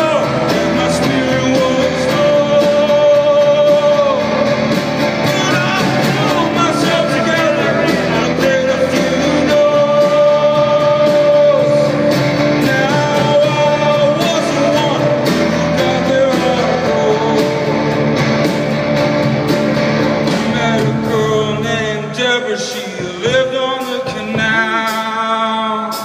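Live solo performance: a man singing long, held lines over an amplified classical acoustic guitar through a PA system. About 22 seconds in the low notes drop away and the accompaniment thins out.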